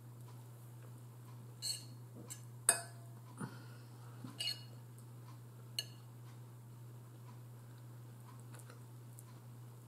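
Metal fork clinking and scraping against a ceramic bowl while picking meat off a chicken leg: about half a dozen short sharp clinks between about a second and a half and six seconds in, the loudest near three seconds, over a steady low hum.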